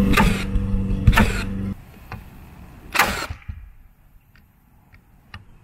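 Framing nailer firing nails through a 2x4 plate into a stud: three sharp shots, two about a second apart at the start and a third about three seconds in. A steady motor hum runs under the first two shots and cuts off just under two seconds in.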